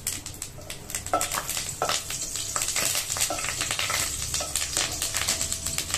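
Mustard and cumin seeds crackling and sizzling in a little hot oil in a stainless-steel kadai, a dense run of sharp pops over a steady hiss: the tempering (tadka) oil is hot enough to make the seeds splutter.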